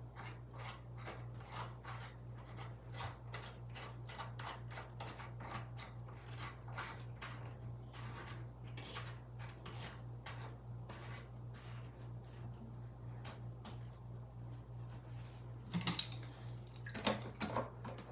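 Short metallic scrapes and clicks, about two or three a second, of a nut being threaded and turned back onto a faucet valve.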